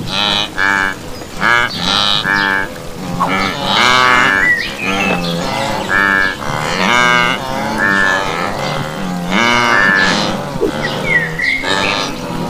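Wildebeest herd calling: a steady run of short, nasal lowing grunts from several animals, one after another and often overlapping.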